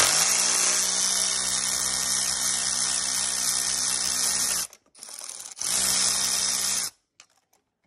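Cordless electric ratchet spinning an 11 mm nut off an intake-manifold stud through a long extension and magnetic socket: a steady motor whine for about four and a half seconds, a short break, then a second run of just over a second.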